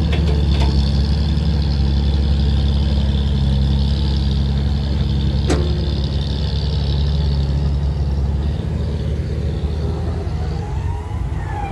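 Loaded six-wheel dump truck's diesel engine running steadily under load as it climbs a steep dirt haul road. The drone drops away about two-thirds of the way through, and there is a single sharp click about halfway.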